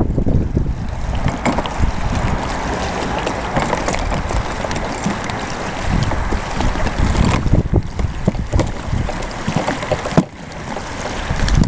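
Wind buffeting the microphone as a steady low rumble that eases briefly near the end, with scattered faint knocks from the plastic sheet of a fold-up kayak hull being bent into shape.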